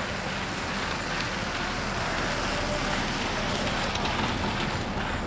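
Steady background hiss of outdoor ambience, even throughout, with no distinct events.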